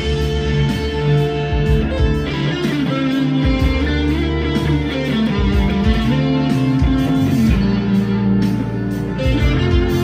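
PRS 245 electric guitar played fast through a high-gain distorted tone, busy picked riffs and lines over deep, sustained low notes.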